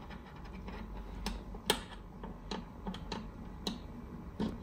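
Test-lead banana plugs being pushed into and fiddled in the sockets of a bench power supply: a string of irregular clicks and small knocks, the sharpest about a second and a half in.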